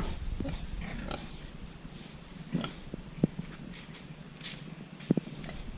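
A pig grunting: short, separate grunts, about six spread over a few seconds.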